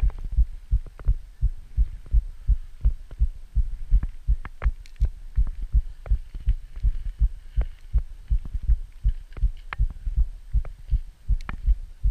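Rhythmic low thumping on the camera microphone, about three thumps a second, with faint ticks above it.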